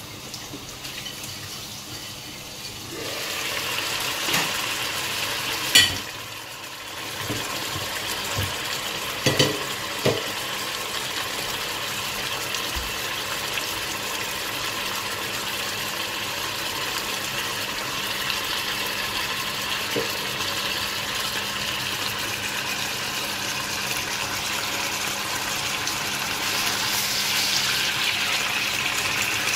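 Green banana curry bubbling and sizzling steadily in a frying pan, with a few sharp clinks of cookware against the pan about six and ten seconds in, and a spatula stirring it near the end.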